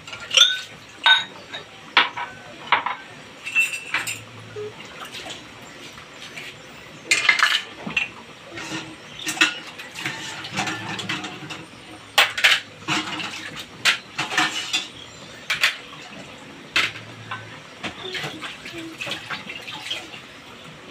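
Irregular clinks and clatter of dishes and metal kitchenware: many short sharp knocks, some with a brief ringing tone, coming more thickly in the middle stretch.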